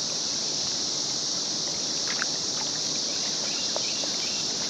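Steady high-pitched drone of an insect chorus, with a few faint bird chirps.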